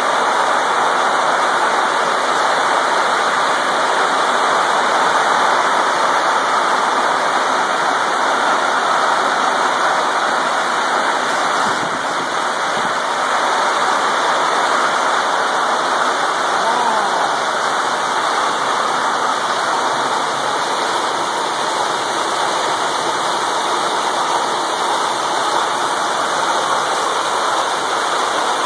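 Heavy hail and rain pelting down on pavement and parked cars: a loud, steady hiss with no letup.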